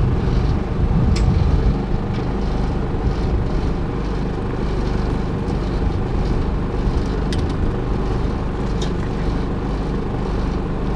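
Steady engine drone of a motor running on a bowfishing boat, with a few sharp clicks over it.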